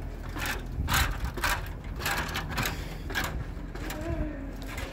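Irregular knocks and scuffs about every half second: footsteps of someone climbing a ladder up onto a motorhome roof.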